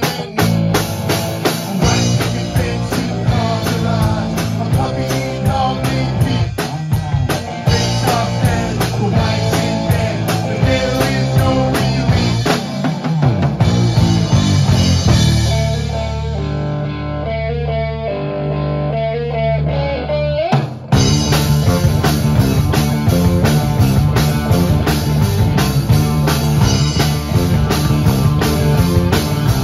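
Live amplified rock band playing an instrumental jam: electric guitars over a drum kit. About 16 seconds in the drums drop out for a few seconds while the guitars hold a sparser passage, then the full band crashes back in about 21 seconds in.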